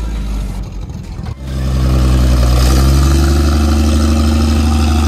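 1965 American LaFrance fire truck engine running low, then about a second and a half in revving up and pulling hard under load. Its pitch rises and then holds steady as the heavily loaded truck drives out of soft sand.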